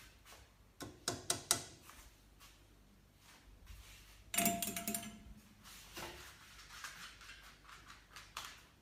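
Kitchen handling noises: a quick run of sharp clicks, then about four seconds in a louder clatter with a brief ringing tone as a microwave door is opened, followed by fainter scattered clicks.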